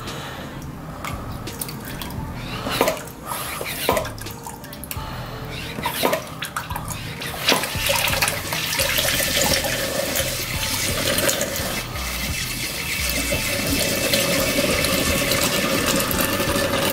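Brake fluid running from the hose of a pressurized Motive power brake bleeder into a plastic jug, flushing the bleeder and its line clean. It becomes a steady pouring stream about halfway through, and a few knocks come before it.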